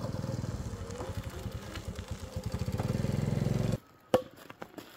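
Small motorbike engine running as it comes along the road, growing louder, then cut off abruptly near the end. Just after, a single sharp knock and a plastic bag rustling.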